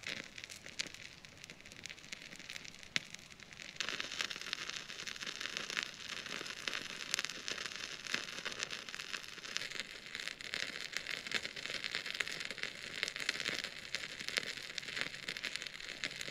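Birch-bark and pine-resin bushcraft candle burning, crackling with a dense stream of small pops and hiss; it gets louder about four seconds in.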